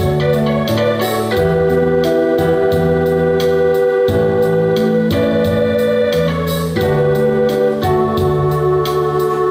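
Band playing an instrumental break: an organ-toned electronic keyboard holds sustained chords and melody over a bass line that moves every second or so, with light percussion ticking steadily.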